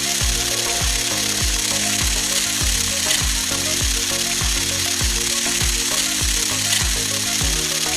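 Electronic background music with a steady kick-drum beat, about two beats a second, under a constant high-pitched buzz from the toy drilling rig's small electric motor.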